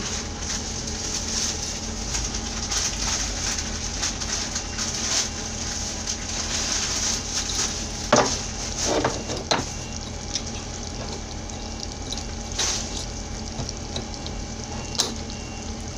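Chicken adobo simmering in an aluminium pot on an electric hot plate: a steady crackly sizzling and bubbling, with a faint hum underneath. A few brief clatters come around the middle, the loudest about eight seconds in.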